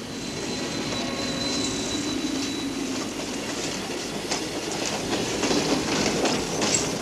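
Freight train of old boxcars rolling slowly past, its steel wheels clacking over the rail joints, with a thin high wheel squeal in the first few seconds. It grows louder as the wagons pass, and the clacks come more often in the second half.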